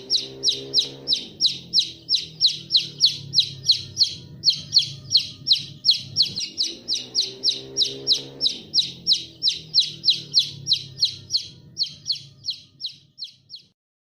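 A bird chirping loudly and rapidly, about three sharp high chirps a second in an unbroken run, stopping abruptly near the end. Underneath, a lower sound with several pitches rises and falls in two long stretches.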